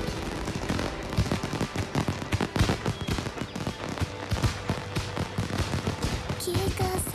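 Film sound effect: a dense, irregular crackle of many small snaps over low thuds. Music with held tones enters about six and a half seconds in.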